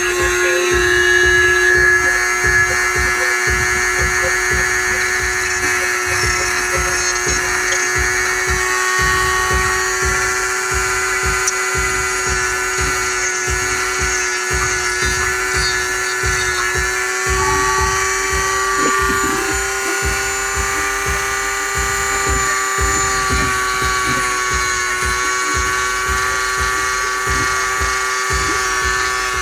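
Corded handheld rotary tool running steadily with a high, even whine as its grinding bit sharpens a hatchet blade.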